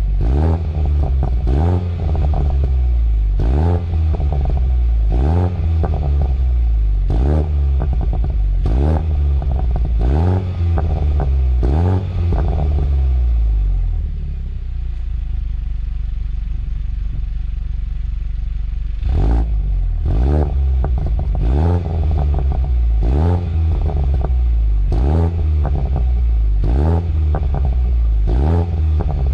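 Car engine breathing through a newly fitted aftermarket exhaust, revved in quick throttle blips about once a second, settling to a steady idle for a few seconds around the middle before the blips start again. The exhaust note is not extremely loud but subdued and restrained.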